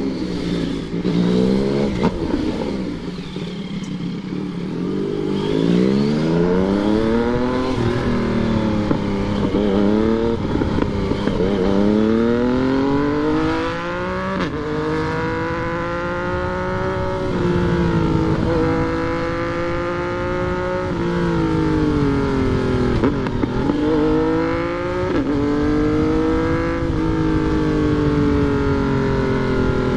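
Yamaha MT-09's three-cylinder engine pulling through the gears on the road. Its pitch rises steadily, then drops sharply at each upshift, several times in a row. Between pulls it eases off with falling revs.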